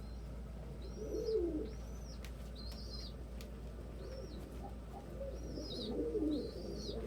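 Pigeons cooing in low gliding calls, joined by a string of short high thin peeps repeated about once a second.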